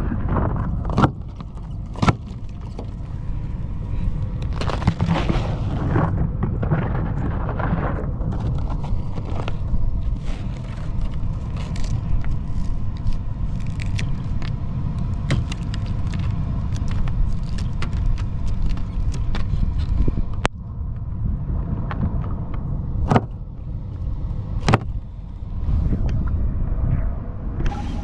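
Pickup plow truck driving, with a steady low engine and road rumble and scattered sharp clicks and knocks.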